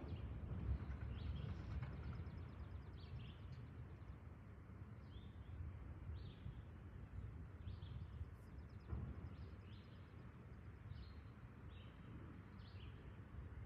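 Small birds chirping again and again over a low steady rumble, while the rumble of a freight train fades away over the first few seconds.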